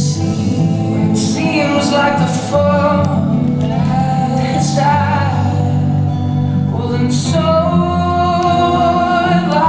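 Music with a singing voice holding long notes over a steady accompaniment.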